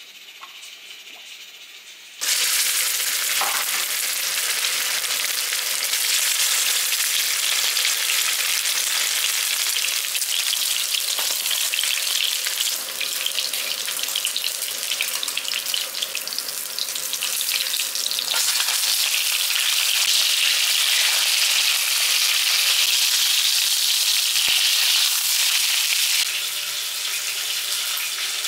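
Slabs of pork belly sizzling in hot oil in a frying pan. The sizzle starts suddenly and loud about two seconds in, then holds steady.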